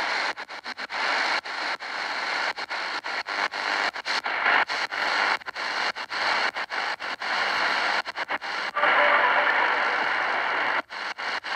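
XHDATA portable shortwave receiver being tuned quickly up the 49-metre band: static and hiss from its speaker, with little station audio to be heard, broken by many short gaps several times a second as the tuning steps.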